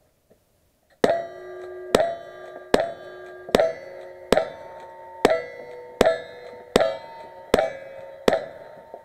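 Ten rifle shots fired in a steady string, about one every 0.8 seconds, each followed by the ringing of a hit steel target.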